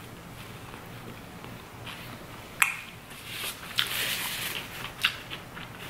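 A person biting and chewing jackfruit pulled-pork toast, with a sharp bite click about two and a half seconds in, then crackly chewing noises and another click near the end.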